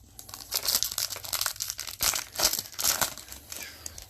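Foil wrapper of a Bowman Chrome trading-card pack crinkling and crackling as it is torn open and handled, in quick irregular bursts.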